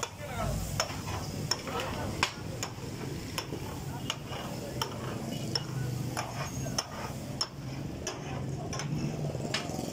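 Two flat metal spatulas clanking and scraping on a large flat steel griddle as minced food is chopped and turned in hot oil, with a steady sizzle underneath. The sharp clanks come about once or twice a second.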